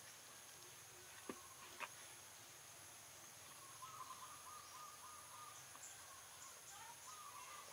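Faint outdoor ambience: a steady high insect drone, with two soft clicks just over a second in and faint chirps near the middle and again near the end.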